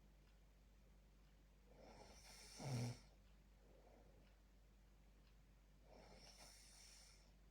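A sleeping person snoring, one breath about every four seconds: a loud snore with a low buzz about three seconds in, and a softer, airy breath near the end.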